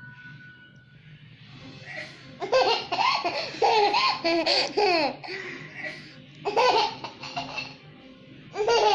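High-pitched laughter in three fits: a long one starting about two and a half seconds in, a shorter one a little after the middle and another near the end, each 'ha' dropping in pitch.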